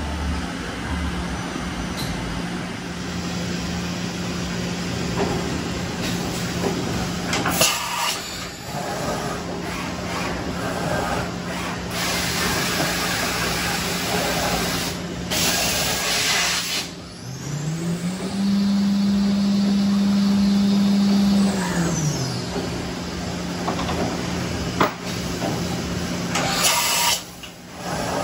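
Mazak VCS-530C CNC vertical mill running under power, with a steady low hum and several bursts of hissing. About two-thirds of the way through, a motor whine rises in pitch, holds for about three seconds, then falls away as a drive spins up and back down.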